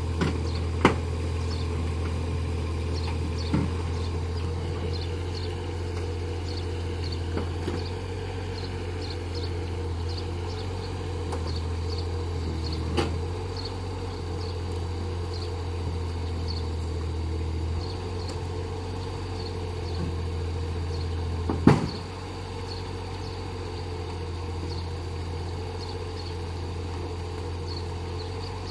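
Kubota U15-3 mini excavator's three-cylinder diesel engine running steadily, with a few sharp clunks, the loudest about twenty-two seconds in, after which the engine note drops slightly.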